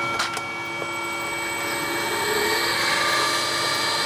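Electric motor running on a repaired Powtran variable-frequency drive, with steady high whine tones over the running noise, getting louder over the first three seconds as it comes up toward 50 Hz. A couple of light clicks sound at the start.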